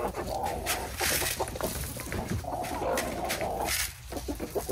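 Backyard chickens clucking as they feed, with two short stretches of rustling as treats are tossed from a bucket onto the ground.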